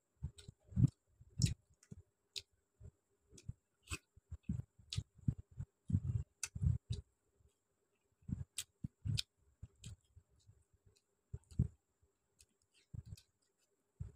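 Close-miked eating sounds: irregular wet clicks and soft smacks of chewing, mixed with the squelch of fingers working rice and chicken curry on a steel plate.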